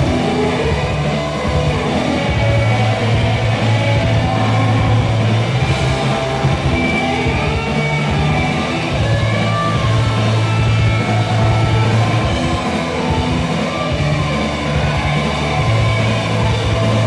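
Rock band playing live, with electric guitar to the fore over a heavy, steady low end.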